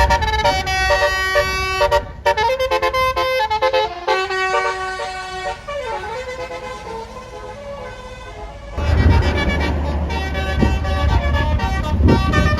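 A bus's telolet horn, a Basuri-type multi-trumpet musical air horn, playing a quick tune of stepped notes for about five seconds before fading out. From about nine seconds in, a passing vehicle's engine rumbles loudly.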